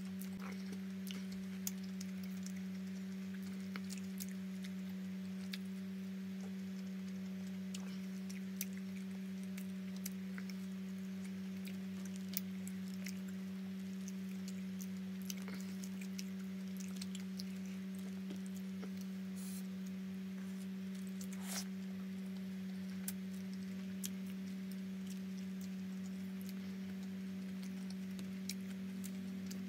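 Mukbang eating sounds: scattered small clicks and smacks of chewing and of a roti John being torn by hand on its paper wrapper, over a steady hum.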